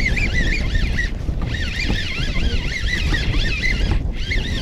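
Strong wind buffeting the microphone over a wavering high-pitched whine, which breaks off briefly about a second in and again near the end.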